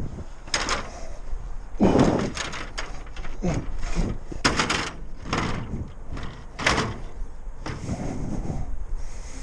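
A ladder being handled and slid into a work van: a run of knocks and clatters, with a heavy thump about two seconds in.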